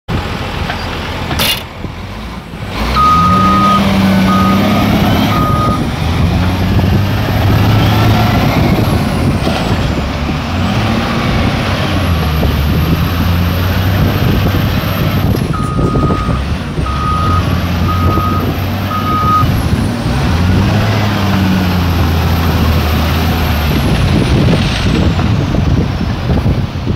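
Wheel loader's diesel engine working, its pitch rising and falling several times as the bucket is raised and dumped. The reversing alarm beeps in short runs, once about three seconds in and again about halfway through.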